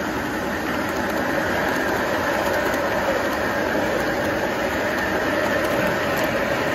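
Model freight train cars rolling past close by: a steady rumble and whir of many small metal wheels on the rails.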